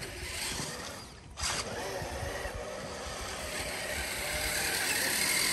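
Radio-controlled crawler truck driving over snow: a steady whine from its electric motor and gears mixed with tyre noise, growing a little louder near the end. There is a single knock about a second and a half in.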